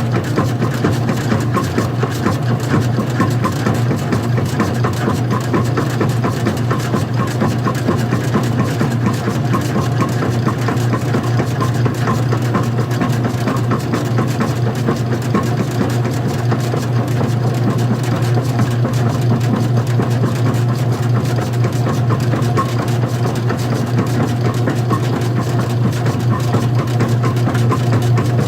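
Old-style front-loading washing machine running: a steady low motor hum with a fast, even rattle over it, unchanging throughout.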